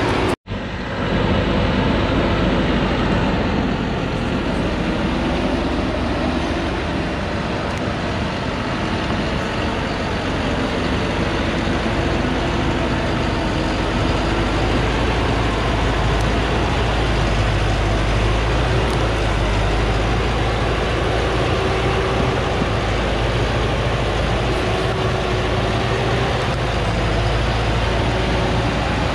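Diesel engine of a heavily loaded Thaco Forland truck labouring as it climbs a steep dirt track, a steady heavy drone. The sound cuts out for an instant about half a second in.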